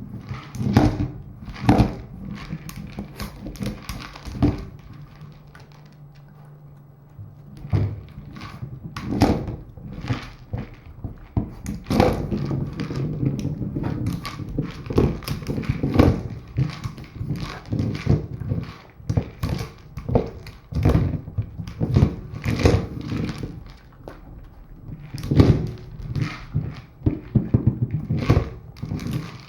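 KONG Wobbler plastic treat-dispensing toy being knocked about by a dog, thumping and clattering on the floor in irregular runs as it tips and rocks back upright. There is a quieter spell about six seconds in.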